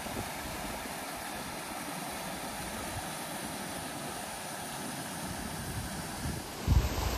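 Brook water rushing steadily over rocks and small cascades. A brief low rumble, likely wind or handling on the microphone, comes near the end.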